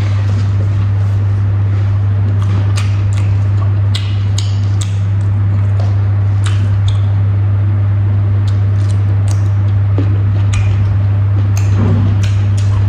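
Eating by hand: fingers mixing rice on a plate, with soft squishes, small clicks and chewing sounds, scattered irregularly. A loud, steady low hum runs underneath throughout and is the loudest sound.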